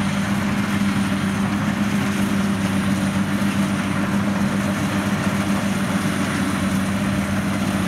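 WD 102PRO rice combine harvester running steadily as it drives across the field, its engine and machinery giving an even drone with a steady low hum.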